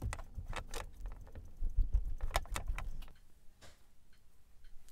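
Braided rope being wound around the fingers to form the turns of a monkey's fist knot: a rustle of line with scattered small clicks and soft knocks, busiest in the middle and dying down after about three seconds.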